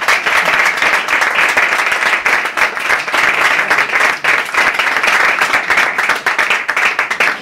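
A small audience applauding: steady, dense clapping that stays loud throughout.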